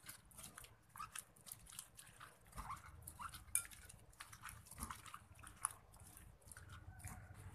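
A hand squeezing sliced shallots, chilies and tamarind in a ceramic bowl: faint, irregular wet crackles and squishes as the raw onion slices are crushed to release their juice.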